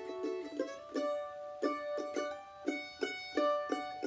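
Solo mandolin playing a harmony line, with quick picked notes, rapidly repeated strokes on held notes, and occasional two-note double stops.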